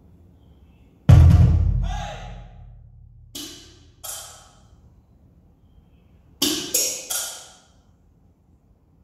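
Percussion music played back through speakers in a speaker test. A deep drum hit about a second in rings out for about two seconds, followed by two shorter, lighter hits, then three quick hits in a row near the end.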